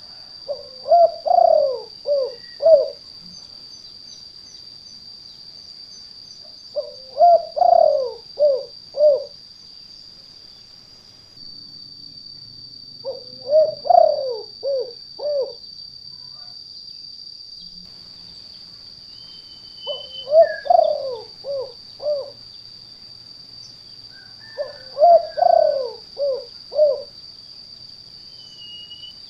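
Spotted dove (tekukur) cooing in its 'kuk 2' call type. Five phrases come about every six seconds, each a rolling run of coos ending in two short separate notes. A steady high-pitched tone runs underneath.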